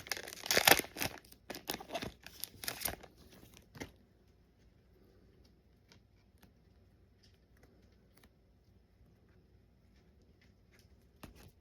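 Foil booster pack wrapper crinkling and tearing open for about the first four seconds, then only faint scattered ticks.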